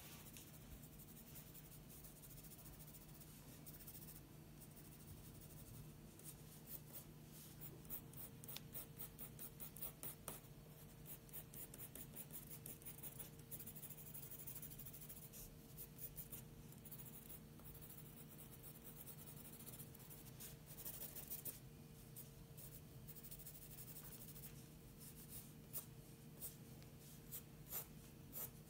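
Pencil scratching on paper in faint, quick, short strokes as a drawing is shaded, coming in bursts with short pauses between them.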